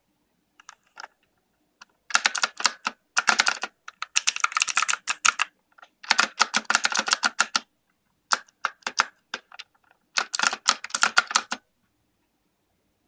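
Fast typing on a mechanical keyboard with clicky Kailh Blue switches, some keys topped with metal keycaps. The keys go in bursts of rapid clicks with short pauses between, starting about two seconds in.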